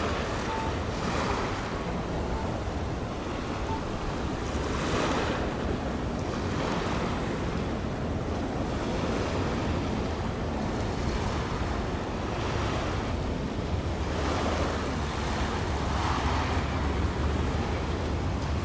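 Sea waves washing with wind buffeting the microphone, surging in slow swells every few seconds. A low rumble grows stronger near the end.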